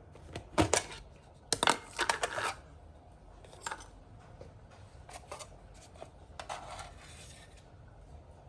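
Kitchen handling clatter: a scatter of short clinks and knocks from utensils and containers being handled and set down, with a brief rustle near the end.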